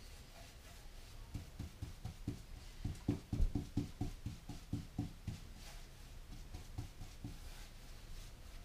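Paintbrush strokes on a wooden beehive body tilted on its edge: a run of soft low knocks, two or three a second, loudest about three seconds in, as the brush works the box against the table.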